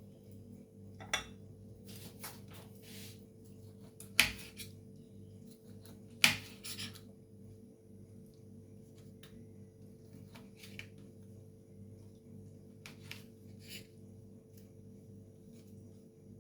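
Knife and citrus fruit being handled over a dish while the white pith is cut away: scattered light clinks and taps, with two sharper clinks about four and six seconds in, over a steady low hum.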